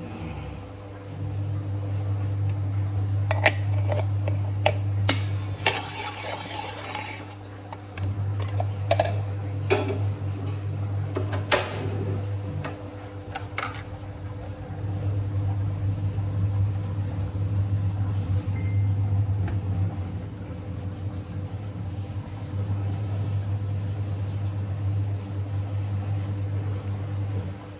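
Aluminium moka pot being handled and set down on a gas stove: a series of sharp metal clinks and knocks, with a short scraping stretch among them, over a steady low hum; the clinks stop about halfway through.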